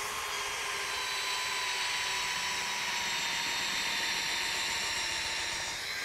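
Cordless drill running steadily under load, spinning a 2-inch sharpened metal coring tube down through packed rye silage to cut a density core. It makes a steady whine over a rough hiss.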